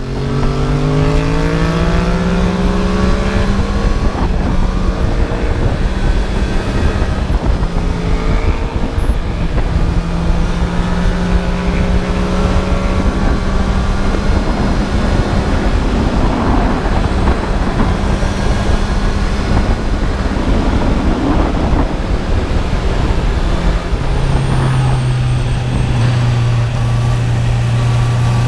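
Honda CB650R's inline-four engine, restricted to 35 kW for the A2 licence, running under way with heavy wind rush. The revs climb right at the start, hold fairly steady, then fall to a lower steady note near the end.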